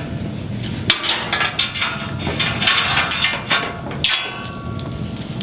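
Hardware handling noise: a run of irregular clicks and knocks as a fiber trunk cable and its grommet are fitted onto the chassis's metal swivel bracket, with a short metallic ring about four seconds in.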